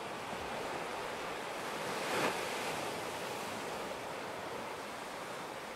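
Small waves washing onto a rocky shore: a steady rush of surf, with one louder wash about two seconds in.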